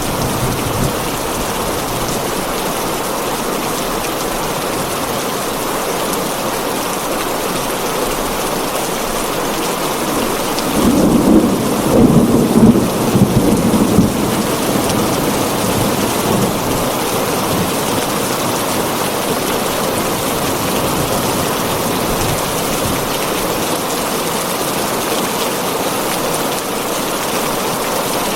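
Heavy rain falling steadily on a tin roof. About a third of the way in, a roll of thunder rumbles low and loud for a few seconds, then fades back under the rain.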